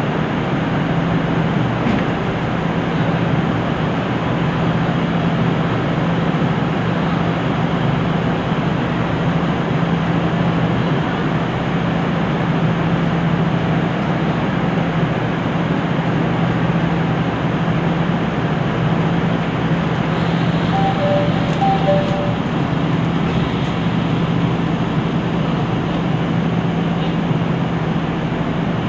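Diesel engine of a JR Central KiHa 75 railcar idling with the train standing at a platform, a steady low hum heard from inside the car. A short two-note electronic tone sounds twice about three quarters of the way through.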